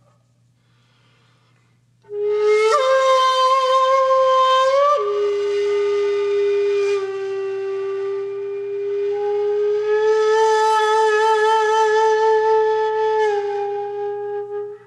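Background music: a solo flute playing a few long held notes, coming in about two seconds in after a near-silent start.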